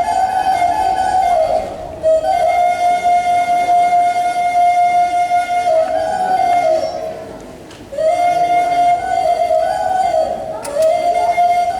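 A solo flute playing a slow melody of long held notes that step up and down. The melody breaks off briefly about two seconds in and fades out for about a second near eight seconds.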